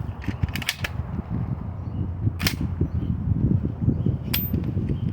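Sharp shotgun-like cracks over a steady low rumble: a quick cluster near the start, then single cracks about two and a half and four and a half seconds in.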